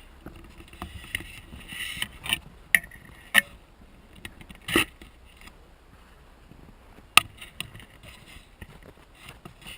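Firewood sticks being handled, about five sharp, irregular wooden knocks and cracks with some rustling between them.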